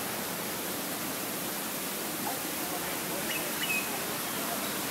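Steady rush of water from a garden pond's waterfall, heard as an even hiss. A few faint, short high chirps come about three and a half seconds in.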